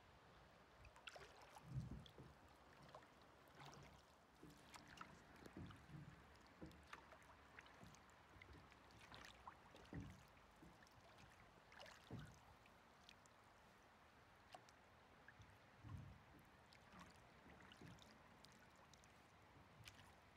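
Faint lapping and small splashes of river water against a drift boat's hull, with a soft low slap every few seconds.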